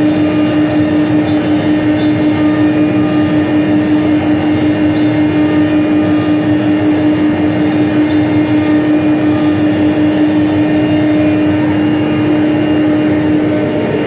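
ATC CNC router spindle running at a steady pitch while cutting HPL (high-pressure laminate) sheet, a rough cutting noise under the steady whine.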